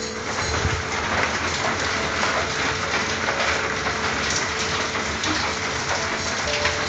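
Rain falling steadily on a corrugated tin roof.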